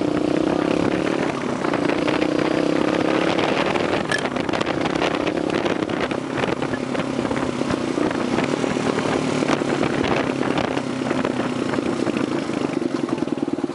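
Suzuki SP250's single-cylinder engine running under way, with wind rushing over the microphone. The engine note rises a little in the first couple of seconds, wind noise covers it through the middle, and near the end it settles into a steady, even beat.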